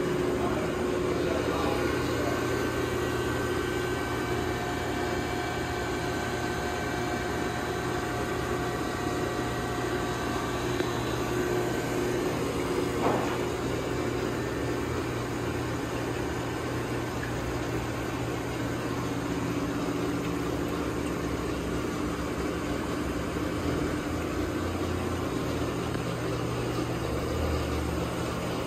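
Steady hum of running shop machinery, with several steady whining tones that shift partway through and a single brief knock about thirteen seconds in.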